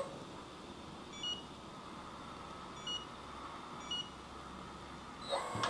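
Three short, high beeps from a handheld RC transmitter's touchscreen menu as its buttons are pressed. They come a second or so apart over faint room hiss.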